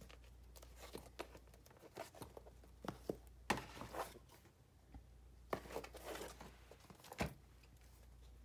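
Old hardcover journals being handled and shuffled on a wooden tabletop: covers sliding and scraping against each other and the boards, with rustles and light knocks in irregular bursts, heaviest around the middle.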